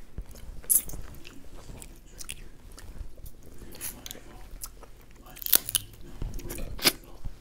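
Snow crab leg shells cracked and snapped apart by hand, with irregular crackling and three sharp loud cracks: one under a second in, one about halfway, and one near the end.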